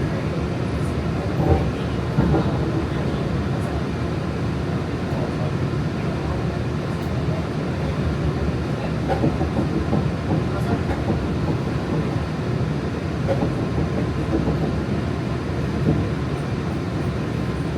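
Walt Disney World monorail running between stations, heard from inside the car: a steady rumble of the rubber-tyred train on its beam, with light rattles and clicks.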